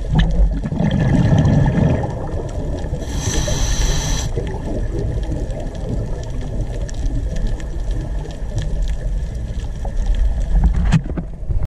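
Underwater ambience picked up by a camera in its housing: a steady low rumble and water noise with faint ticking. About three seconds in, a hiss with high steady tones lasts about a second.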